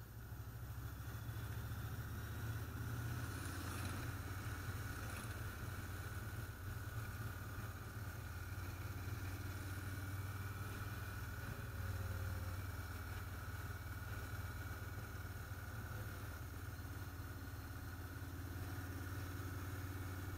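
Motorcycle engine running steadily while riding at road speed, with road and wind noise.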